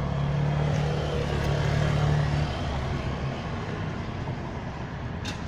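Steady low hum of a motor vehicle's engine, loudest for the first two or three seconds and then fading away, with a single short click near the end.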